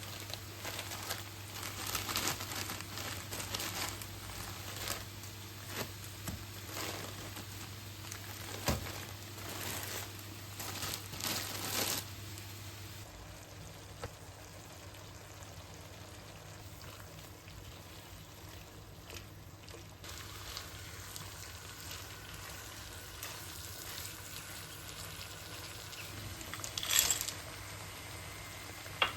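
Kitchen cooking noises: irregular clicks, taps and scrapes of utensils and cookware for the first dozen seconds, then a quieter stretch with a faint steady hum, and one short sharp clatter near the end.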